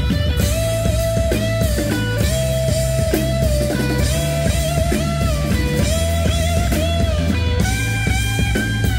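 Live rock band playing: an electric guitar solo of long, bent and held notes with vibrato over drums and bass.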